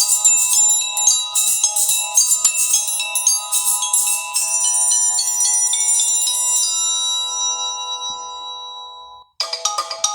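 Samsung Galaxy Fame ringtones playing. A melody of quick repeated notes gives way about four seconds in to held notes that fade out, and after a brief gap near the end the next ringtone starts.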